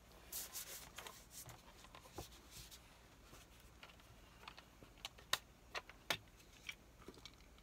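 Faint, scattered clicks and ticks as a large plastic Suntory Whisky bottle is handled and its screw cap twisted open, with a small cluster of clicks just past the middle.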